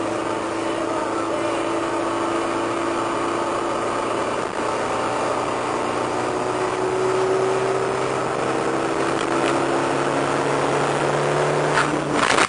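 Nissan 240SX heard from inside the cabin at highway speed: a steady engine hum with road and tyre noise, its note rising a little about halfway through. Near the end come a few sharp clicks, then the sound cuts off abruptly.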